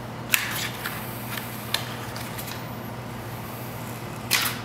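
Protective paper backing being peeled and worked off a plastic splash guard sheet by hand. A sharp crackle comes about a third of a second in, then a few small ticks, and a longer tearing rasp near the end.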